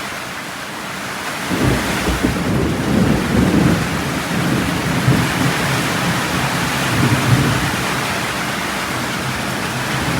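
Heavy rain pouring steadily in a thunderstorm. A rolling rumble of thunder sets in about a second and a half in and goes on for several seconds, slowly fading.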